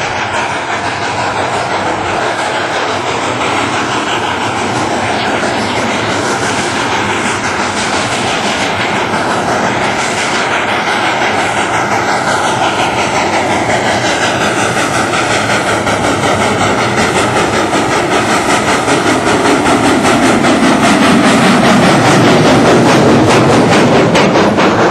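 New Hope & Ivyland #40, a 2-8-0 Consolidation steam locomotive, working hard on a runby, its stack exhaust beating rapidly and growing louder as it approaches, then passing close near the end.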